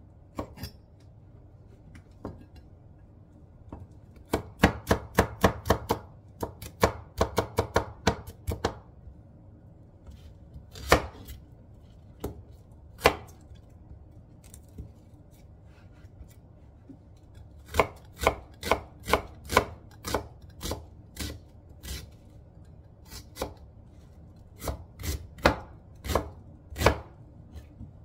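Chef's knife chopping on a cutting board: quick runs of sharp strikes mincing garlic, then slower, spaced cuts slicing through a red onion.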